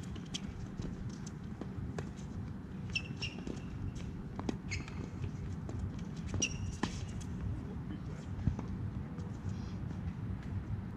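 Tennis being played on a hard court: sharp pops of racket strikes and ball bounces, with several short shoe squeaks on the court surface, over a steady low background hum.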